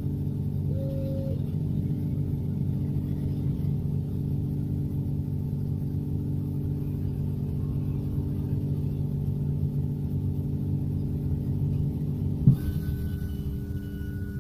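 Steady low hum with several steady tones inside the cabin of a Xiamen King Long electric low-floor midibus standing still. About twelve seconds in there is a single sharp knock, after which a thin high whine comes in and holds.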